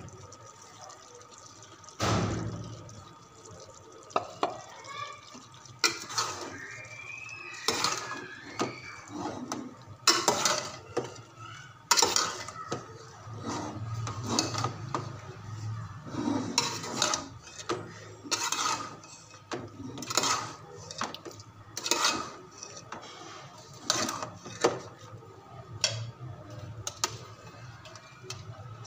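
A metal spoon clinking and scraping against a metal cooking pot as shredded cabbage is stirred in, in irregular knocks every second or so. The sharpest knocks come about 2, 10 and 12 seconds in.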